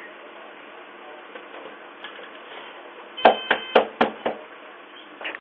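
Knocking on a front door: a quick run of about five sharp knocks a little after three seconds in, and one softer knock near the end, picked up by a Ring video doorbell's microphone.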